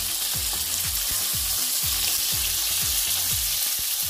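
Chicken thighs frying in hot olive oil in a pan on medium-high heat: a steady, even sizzle.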